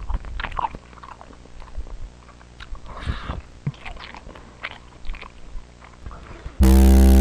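Scattered small clicks and crackles over a steady low hum, then a sudden loud buzzing burst of static near the end.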